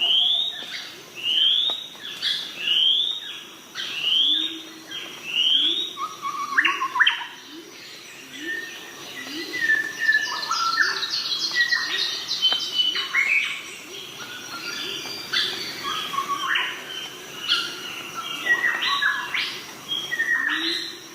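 Birds calling: a run of rising whistled notes about every second and a half, then a busy mix of chirps, whistles and a quick trill about halfway through, with fainter, lower rising notes underneath.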